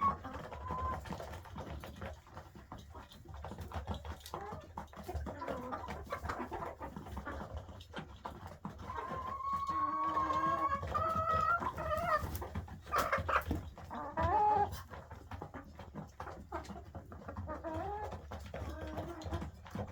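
Chickens calling in a coop: several drawn-out, pitched hen calls and clucks, loudest in a cluster around the middle, over a steady low rumble.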